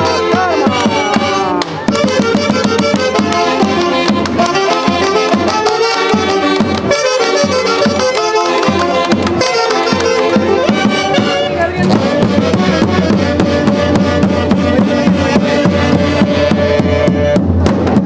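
Band music from a Huancayo orquesta: several melody instruments playing a lively tune over a steady beat, the low beat growing stronger about twelve seconds in.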